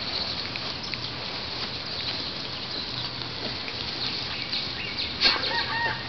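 Puppies tussling on grass: scattered short, high squeaks and rustles over a steady hiss. About five seconds in there is a sharp sound, then a held, slightly falling call begins near the end.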